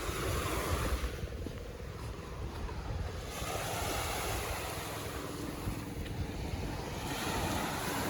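Small waves washing onto the beach, swelling and fading about three times, with wind rumbling on the microphone.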